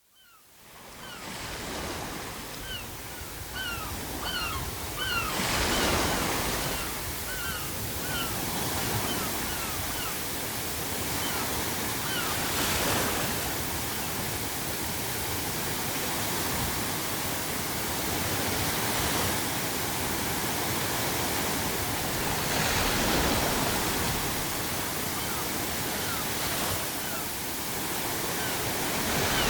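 Sea waves crashing: a steady rush of surf that swells into a louder crash every several seconds, with seagulls giving repeated short cries, most of them in the first several seconds and again near the end. The sound fades in over the first couple of seconds.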